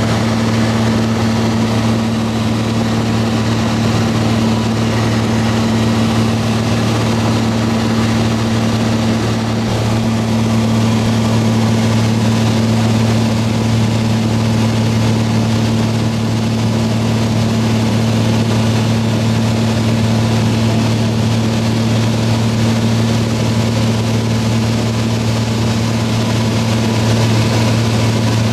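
Cessna 182P's six-cylinder piston engine and propeller running steadily, heard from inside the cabin: a constant low hum over an even hiss.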